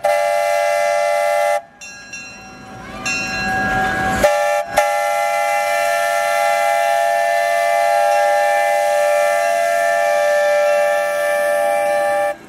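Train whistle of locomotive number 19 blowing a chord of several notes. A first blast cuts off about a second and a half in, a softer one follows around three seconds, then a short toot, and one long steady blast runs from about five seconds in until it stops just before the end.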